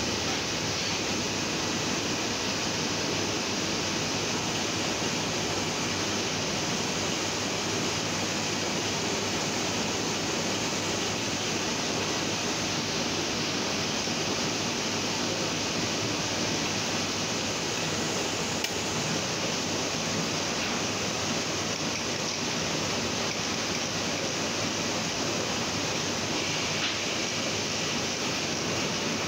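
Heidelberg GTO offset printing press running: a steady, even rush of machine noise with no distinct strokes or changes.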